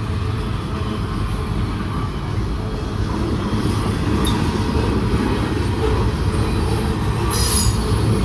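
Freight train cars rolling past: a steady rumble of steel wheels on rail, with a brief high squeal near the end.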